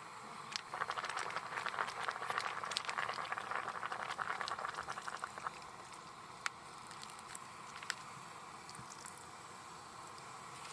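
Sizzling and bubbling of cooking food or liquid in a hot pan, starting suddenly and dying away after about five seconds, followed by two sharp snaps.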